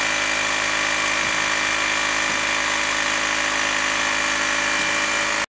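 Small air compressor running steadily as it builds pressure for the compactor's pneumatic actuator, a motor hum with a steady high whine over it. It cuts off suddenly near the end.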